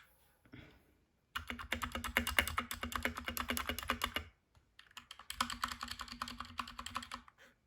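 Fast typing on a Dierya DK63 60% mechanical keyboard with brown switches. Rapid clattering keystrokes start about a second in and come in two runs of about three seconds each, with a brief pause between.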